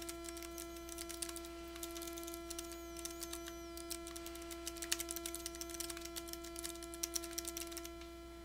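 Typing on a computer keyboard: quick, irregular key clicks that stop near the end, over a steady electrical hum.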